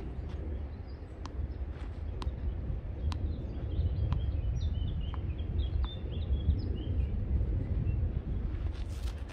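Small birds chirping over a steady low outdoor rumble, busiest through the middle. A few faint sharp ticks come now and then.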